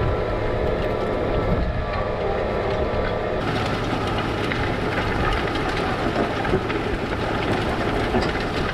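Case IH 245 tractor pulling a 17-foot tillage disc through dry ground: a steady engine drone under the clatter and scrape of the disc gangs cutting the soil. The scraping turns harsher about three seconds in.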